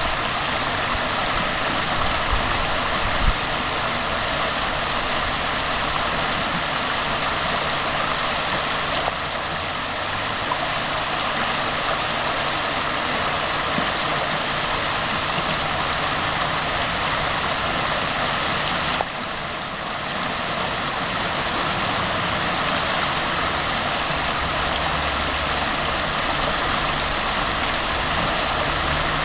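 Shallow rocky stream running over a riffle: a steady rush of water, with a low rumble underneath that grows stronger near the end.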